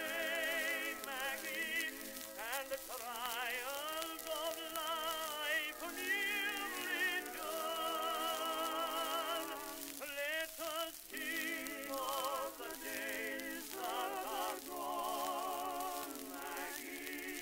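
Background music: a wavering melody line with heavy vibrato and no bass.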